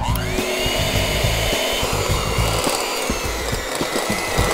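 Electric hand mixer switched on, its motor whine rising quickly as it spins up, then running steadily as the beaters churn through flour moistened with milk and melted butter.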